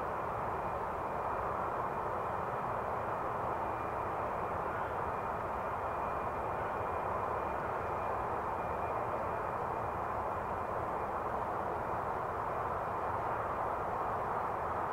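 Xian Y-20A's four D-30KP-2 turbofan engines running steadily at low power: an even jet rush with a faint high whine held at one pitch.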